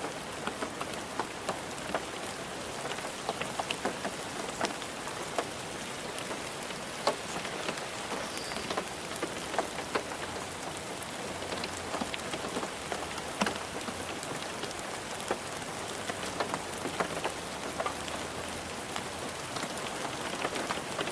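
Steady rain falling on a car roof, a constant hiss with many irregular individual drop taps on the metal.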